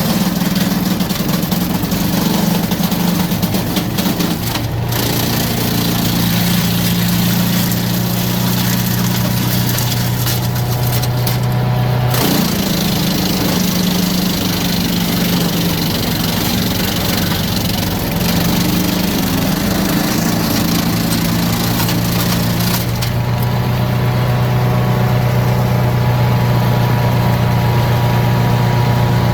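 Engine of a DR PRO XL575 self-feeding wood chipper running steadily under load while brush limbs are chipped, with a rough grinding noise of wood going through the chipper on top of the engine. The chipping noise thins out in the last quarter while the engine keeps running.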